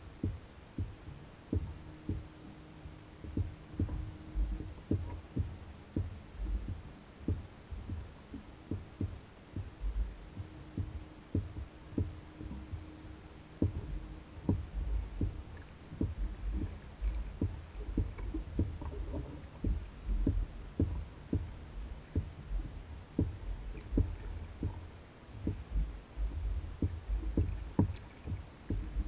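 Small waves slapping and knocking against the hull of an Old Town Guide 119 canoe as it bobs on the water, in irregular low knocks about one or two a second. A faint steady hum comes and goes in the background.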